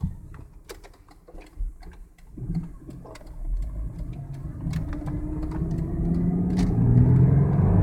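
2001 Ford Mustang's 3.8-litre V6 accelerating in first gear, heard from inside the cabin, its note climbing steadily and growing louder over the last few seconds, with a few light clicks near the start. The engine pulls cleanly here, without the misfire it shows under hard throttle in higher gears.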